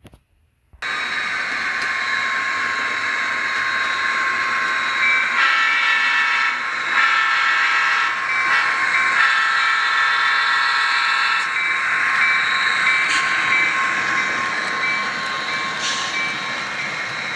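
Diesel locomotive horn blowing the grade-crossing signal, two long blasts, a short one and a long one, over the steady drone of a running train. The sound starts abruptly about a second in.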